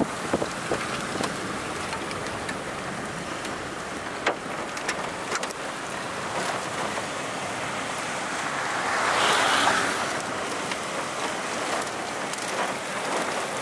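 Strong storm wind rushing with rain, the inflow wind near a violent tornado, with scattered sharp ticks of raindrops hitting close by. A gust swells louder about nine seconds in and eases off a second later.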